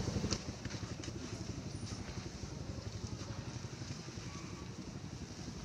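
A small engine running steadily nearby, with a low, rapid, even pulse.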